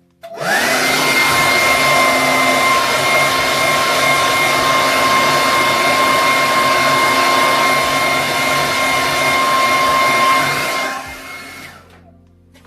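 Handheld hair dryer switched on, its whine rising as the motor spins up, then blowing steadily with a whine over the rush of air. It is switched off about eleven seconds in and winds down. It is warming the screen's adhesive so the panel can be lifted from the frame.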